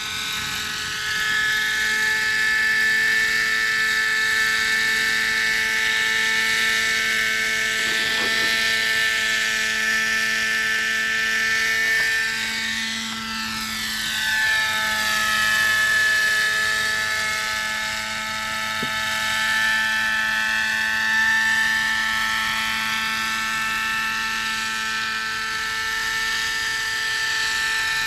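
Webra 50 two-stroke glow engine and coaxial rotors of a homemade radio-controlled model helicopter in flight, running with a steady, high-pitched engine note. The tone sweeps and shifts around the middle as the helicopter moves about.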